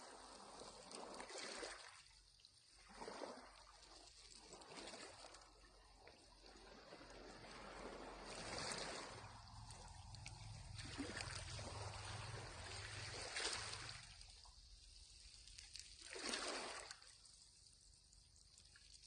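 Small sea waves washing in on the shore, a soft hiss of water that swells and falls in surges every few seconds.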